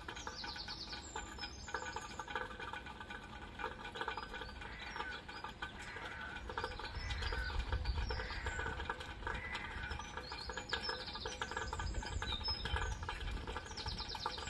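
Rain pattering steadily, with birds chirping and singing over it. A low rumble swells about halfway through and again near the end.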